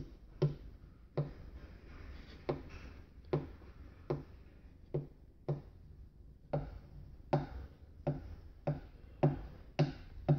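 Light knocks and taps on hard plastic, unevenly spaced at about one or two a second, as a cracked plastic headlight mounting bracket is being welded back onto the housing with a soldering iron. A steady low hum runs underneath.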